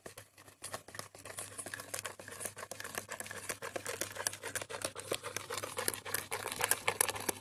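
Steel spoon beating instant coffee, sugar and hot water in a bowl, whipping it into dalgona foam by hand: a fast, uneven run of clicks and taps of the spoon against the bowl, starting about half a second in.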